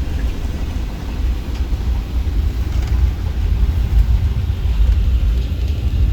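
Cabin noise inside a Boeing 757-200 jetliner: jet engine and airframe noise heard from a forward seat, a loud, steady low-pitched noise with no breaks.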